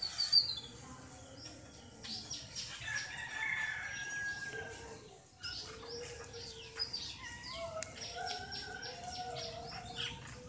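Chickens in the background: drawn-out crowing calls and clucking, with scattered short high chirps.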